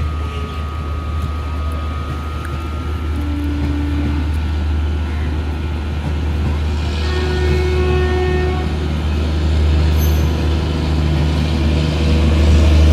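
Long passenger train of Indian Railways coaches running past on the nearest track: a steady low rumble of wheels on rail that grows louder toward the end. A few brief steady tones sound over it near the start and about halfway through.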